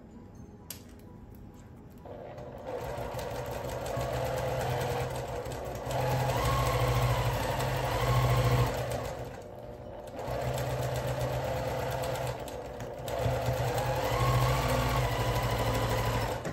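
Electric domestic sewing machine stitching pieced quilt fabric, starting about two seconds in and running in several spells with short pauses, faster for a stretch in the middle, then stopping just before the end.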